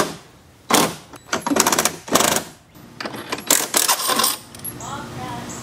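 Several short bursts of rapid metallic clicking and clanking from the mounting bolts on an outboard motor's transom bracket being worked with a hand tool.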